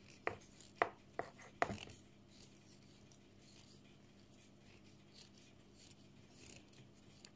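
Wire whisk stirring thick cake batter in a plastic mixing bowl. It knocks sharply against the bowl four times in the first two seconds, then settles into a faint, soft stirring.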